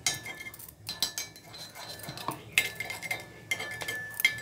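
Metal spoon scraping and clicking against the cups of a paniyaram pan as ghee is spread around them, in irregular taps and scrapes.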